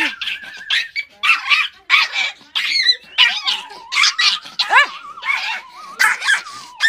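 A small Pomeranian puppy yapping rapidly in high-pitched barks, about two a second.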